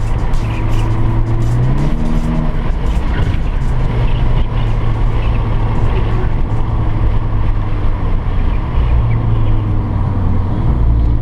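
Volkswagen Golf R engine pulling hard at track speed, heard from inside the cabin over steady tyre and road roar. The engine note climbs about a second or two in, then holds steady.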